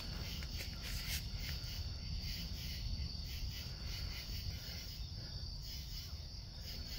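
Night insects chirring in one steady, high, unbroken trill, over a low rumble of handling noise. A few crunching footsteps on dry leaves come in the first second or so.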